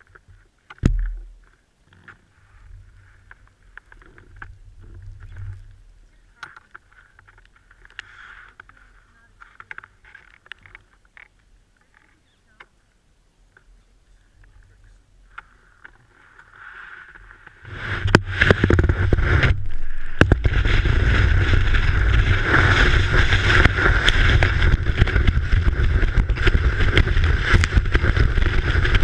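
Telemark ski with the microphone mounted on it: mostly quiet with scattered small clicks and a thump about a second in while the skier stands still, then from about eighteen seconds in a loud, steady rushing as the ski runs downhill through powder snow, with wind buffeting the microphone.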